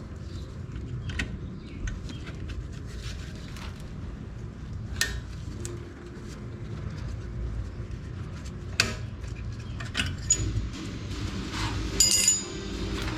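Metal hand tools and brake parts clinking and tapping during a front brake pad change, with a louder ringing metallic clink near the end.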